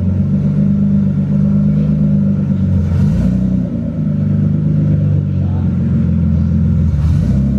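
Nissan GT-R R35's twin-turbo V6 running loud with its exhaust system removed, the engine note shifting briefly about three seconds in and again near the end.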